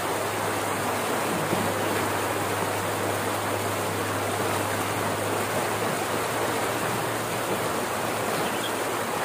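Floodwater pouring steadily out of a concrete culvert into a pool below: an even, continuous rush of falling water.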